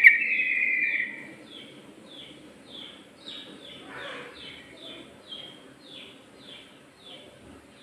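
Yellow-vented bulbul (trucuk) singing: a loud, rapid rattling trill that fades out about a second in, then a steady run of short down-slurred chirps, about two a second.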